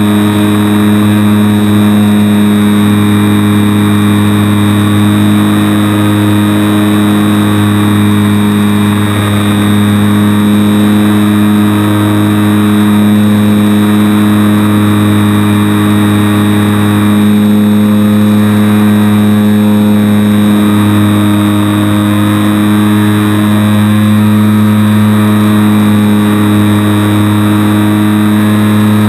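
Electric motor and propeller of a HobbyZone Super Cub RC plane in flight, heard from a camera mounted on the airframe: a loud, steady drone of even pitch.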